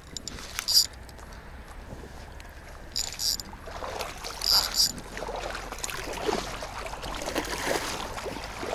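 Water sloshing and splashing as a speared carp is hauled in, with a few short, sharp clicks or knocks scattered through it.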